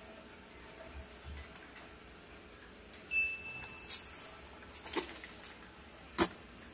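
Plastic fish bag crinkling and rustling in the hands as it is twisted and tied around an air-pump tube, with a short squeak just after three seconds. A single sharp click comes about six seconds in.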